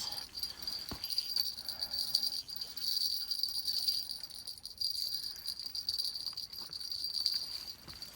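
Insects calling in a steady, high-pitched, continuous chorus.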